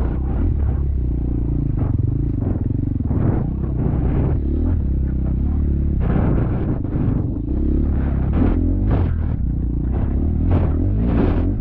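Four-stroke dirt bike engine running steadily while riding off-road, with frequent irregular clattering knocks over it.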